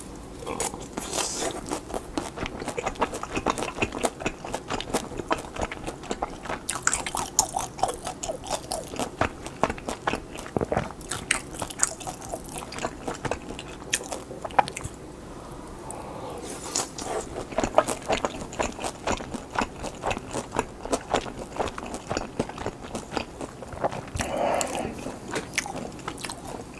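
Close-miked biting and chewing of pan-fried hotteok dumplings, the browned, crisp-fried dough crunching in many small irregular crackles and clicks that ease briefly about halfway through.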